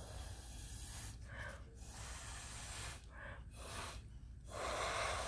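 A person blowing through a drinking straw onto wet epoxy resin to push it into wave shapes: a series of breathy puffs with short pauses between them, the last puff the loudest, near the end.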